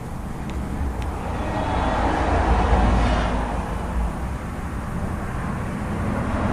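A vehicle driving past on a nearby road: a steady rumble that swells to its loudest about halfway through and then fades.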